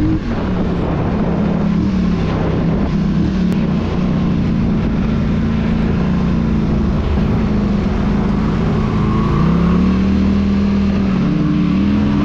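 Polaris Scrambler 1000 XP ATV's twin-cylinder engine running under way on a dirt track, its pitch dipping and climbing again several times as the throttle is eased off and opened.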